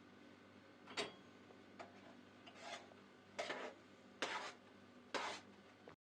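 A sharp click, then four rasping scraping strokes a little under a second apart.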